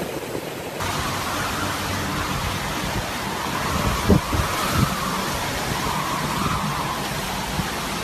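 Hurricane-force wind and heavy rain: a steady rushing noise with a whistle that rises and falls, and two sharp thumps of gusts hitting the microphone near the middle. Under a second of surf crashing against a seawall before it.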